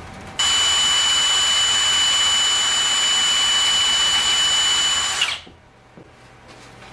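Cordless drill boring a hole through a thin metal cookie sheet. It starts abruptly, runs at one steady speed with a high whine, and stops about five seconds in.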